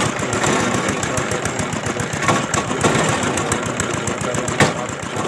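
Single-cylinder "Peter" diesel engine running steadily as it drives a tube-well boring rig, with a few sharper knocks about two, three and four and a half seconds in.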